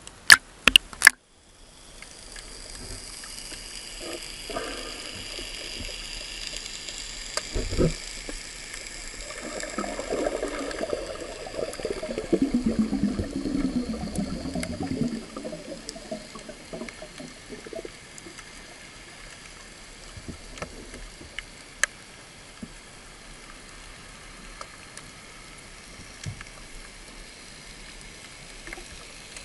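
Underwater sound from a camera going below the surface: sharp splashes in the first second, then a muffled hiss scattered with faint clicks. A stretch of gurgling bubbles runs from about ten to fifteen seconds in.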